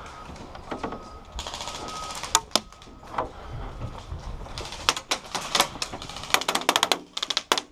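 Airsoft guns firing in rapid bursts: quick runs of sharp clicks in three bursts, with a few single cracks between them.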